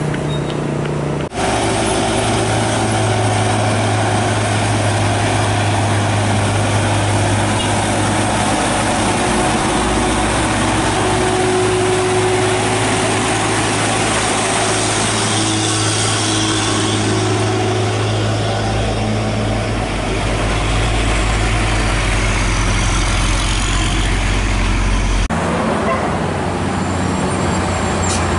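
Heavy diesel truck engines running and passing close, a steady low drone. The sound changes abruptly about a second in and again near the end.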